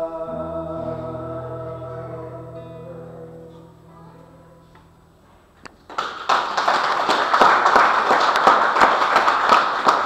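A singer's held final note over a ringing acoustic guitar chord, fading away over a few seconds. About six seconds in an audience breaks into applause, which is the loudest part.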